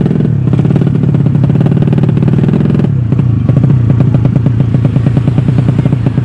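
Racing motorcycle engine running loud and revving, its pitch falling and climbing; about three seconds in it drops sharply and then rises again.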